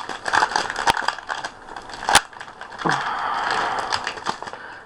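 Foil trading-card booster pack being torn open and crinkled by hand, with a few sharp clicks and a longer stretch of crinkling about three seconds in.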